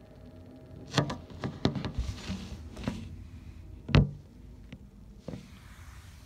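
A string of irregular knocks and clicks, the loudest about a second in and again about four seconds in, with a brief hiss between them.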